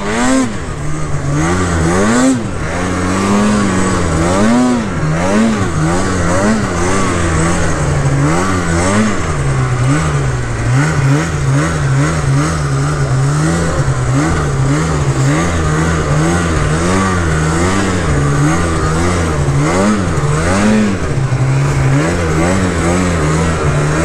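Mountain snowmobile's two-stroke engine revving up and falling back over and over, its pitch rising and dropping every second or two.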